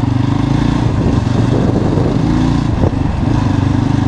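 Motorcycle engine running steadily while riding, with a brief knock about three seconds in.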